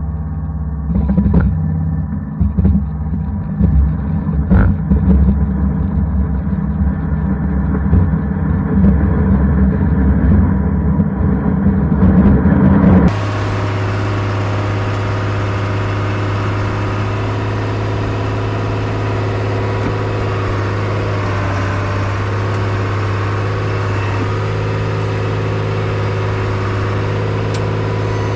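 1998 Bombardier BR-160 snowcat running under way, heard close to its tracks as a low, uneven rumbling clatter with a few sharp knocks. About halfway through it switches abruptly to the engine's steady, even running note.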